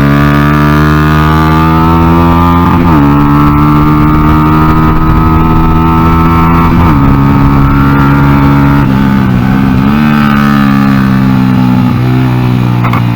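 Honda XR100 single-cylinder four-stroke engine in a Honda NSF100 mini race bike under throttle, its pitch climbing steadily through the gears with quick upshifts about three and seven seconds in. It eases off and dips briefly near ten seconds, then pulls again.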